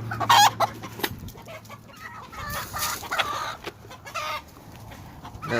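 Gamefowl chickens clucking and calling in their pens, with one loud, high call about half a second in and fainter calls after it.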